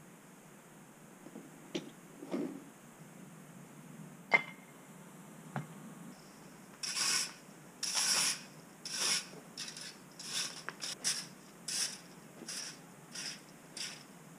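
Strokes of a plastic leaf rake scraping over the ground, a dozen or so irregular sweeps in the second half. Before them come a few scattered knocks and one sharp metallic clink.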